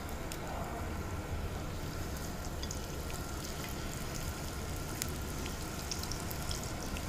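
Paneer spring rolls deep-frying in oil at medium heat in a kadai: a steady sizzle with scattered small pops and crackles.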